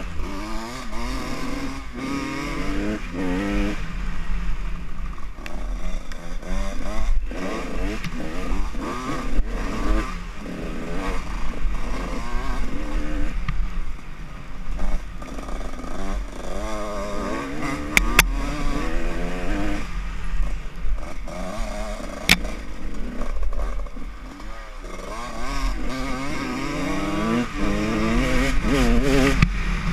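Dirt bike engine heard from on board, revving up and down over and over as the bike is ridden along a rough trail, with a steady deep wind rumble on the microphone. A couple of sharp clicks come in the latter part.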